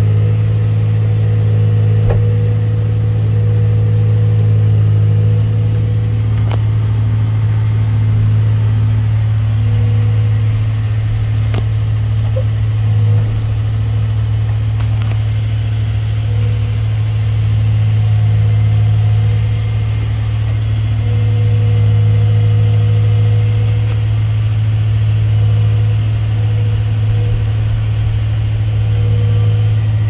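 2014 John Deere 410K backhoe's four-cylinder diesel engine running at a steady speed, heard from inside the operator's cab, with gentle swells in level and a few faint clicks.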